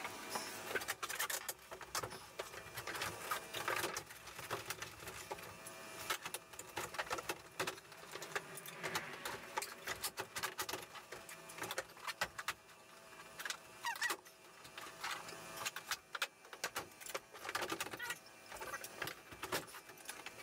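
Faint, scattered clicks and knocks of a van's plastic interior wall panels being handled and pried at their fasteners with a trim removal tool.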